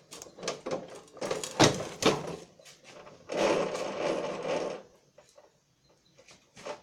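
Knocks and clatter of hands handling a lawn mower, followed by about a second and a half of continuous rattling scrape.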